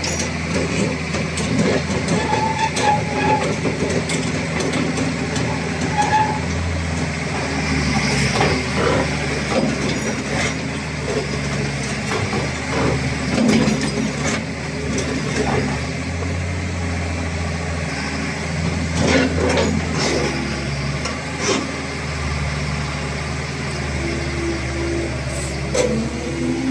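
Caterpillar 330BL crawler excavator's diesel engine running under hydraulic load, its note growing louder and quieter as the boom works, with scattered clanks and knocks from the steel tracks and boom linkage.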